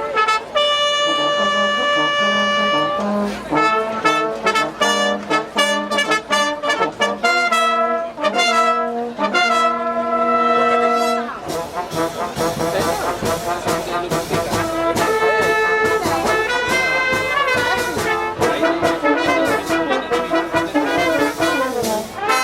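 Brass orchestra playing with trumpets and trombones: a long held chord, then short, repeated notes, and from about halfway through a denser passage with many parts sounding together.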